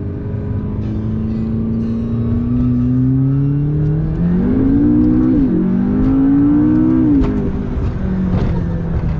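McLaren supercar engine accelerating hard, its note climbing steadily through the gears, with two quick upshifts, one about halfway through and one near the end, each dropping the pitch before it climbs again.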